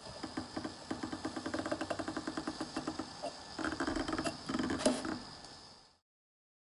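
Brushless motor in an Arduino-driven haptic crank, clicking rapidly, about ten clicks a second, as it is turned by hand through fine, sharp electronically made notches, over a faint steady high whine. The sound cuts off suddenly about six seconds in.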